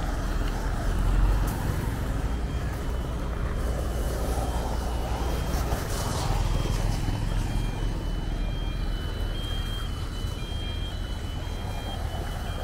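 Road traffic noise: a steady rumble of cars and motorcycles passing on a rough construction road, with a faint, thin, high beeping tone that steps up and down in pitch.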